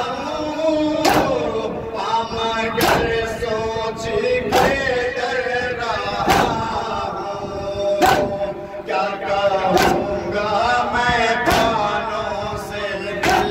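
Men chanting a nauha (Muharram lament) in unison, with a group beating their chests (matam) in a steady rhythm: one loud slap about every 1.7 seconds.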